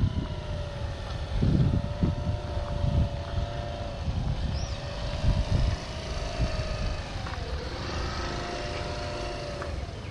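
A motor engine running steadily, its pitch dipping and recovering about three quarters of the way through, with wind buffeting the microphone in gusts.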